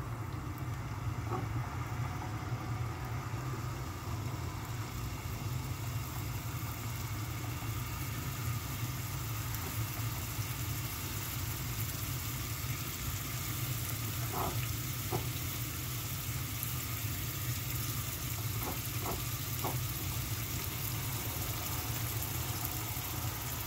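Scallops coated in oil sizzling in a hot nonstick frying pan, the sizzle growing as more are set in. A few light taps come about a second in and twice more past the middle, over a steady low hum.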